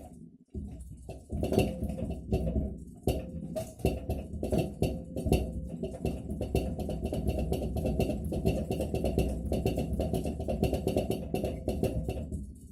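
Atlant refrigerator knocking: a rapid, irregular run of knocks and rattles that starts suddenly about half a second in and eases off near the end. This is the fault that the owner is filming, which comes on every evening even with a voltage stabiliser.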